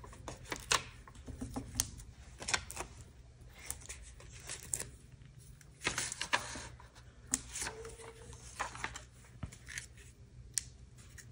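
Scattered light taps and paper handling sounds as a cardstock die-cut with foam adhesive squares is picked up, moved and set down on a cutting mat, over a faint steady low hum.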